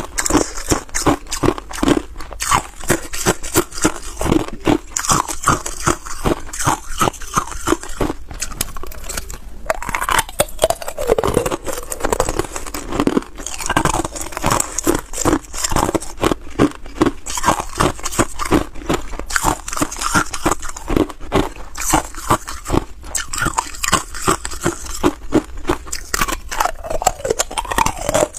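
Hard ice cubes being bitten and chewed, a fast, continuous run of sharp crunches and crackles with brief pauses.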